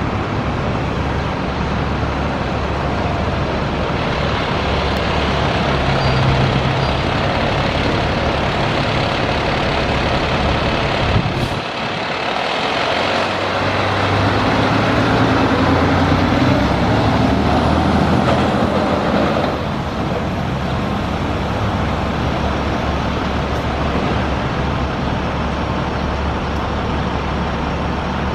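A Seagrave Attacker HD ladder fire truck's diesel engine and road noise as it drives past, loudest as it goes by about halfway through, over steady city traffic.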